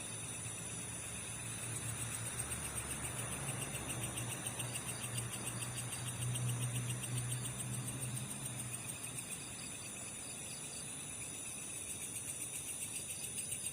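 Crickets and other night insects chirring steadily in several fast-pulsing high tones. Under them, a low droning hum swells in the middle and dies away about nine seconds in.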